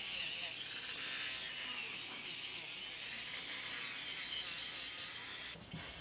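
Dental laboratory handpiece whining at high speed as a small polishing point smooths the acrylic of a repaired oral appliance, its pitch dipping and rising. It stops shortly before the end.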